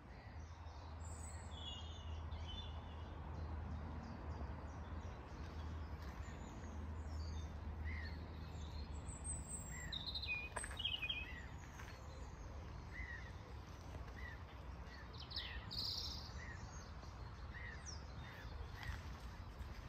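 Woodland birds singing and calling: scattered short chirps and trills, with one bird repeating a short call about once a second through the second half. A steady low rumble lies underneath.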